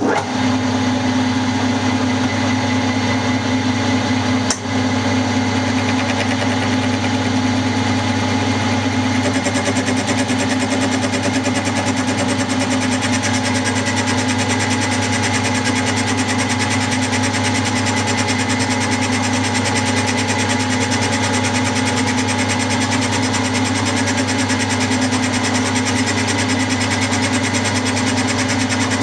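Milling machine running steadily as its 60-degree dovetail cutter cuts the bedway of a model lathe bed, the table feeding the work past the cutter. The level dips briefly about four and a half seconds in.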